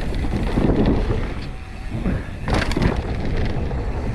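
Wind buffeting the microphone with a steady low rumble as a mountain bike rolls along a dirt trail. About two and a half seconds in comes a short burst of rattling and crunching from the bike and tyres on the rough ground.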